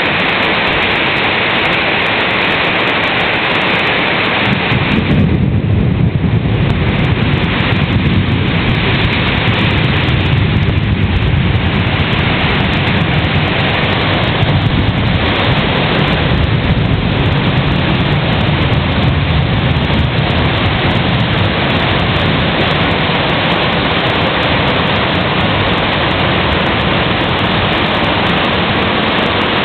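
Heavy rain pouring down steadily. A deep rumble joins about five seconds in and is heaviest for the next fifteen seconds or so.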